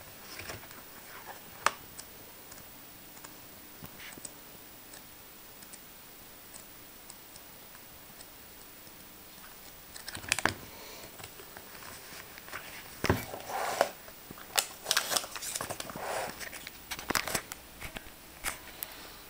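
Pages of a paperback book being leafed through by hand: scattered paper rustles and page flaps, sparse at first and much more frequent in the second half.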